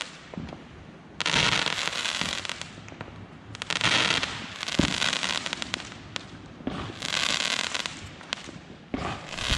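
Fireworks going off: a string of crackling bursts, each about a second long, with one sharp bang about five seconds in.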